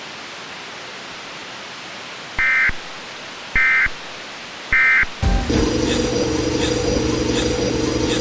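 Steady hiss, then three short warbling data bursts about a second apart: the Emergency Alert System end-of-message code. Just after, a loud droning sound of steady tones and noise begins and keeps going.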